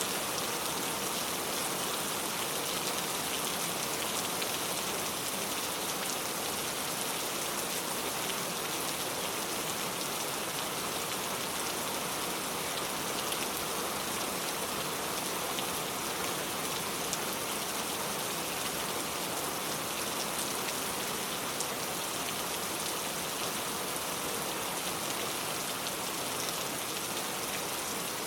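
Steady rain falling, an even hiss with scattered drops tapping on surfaces.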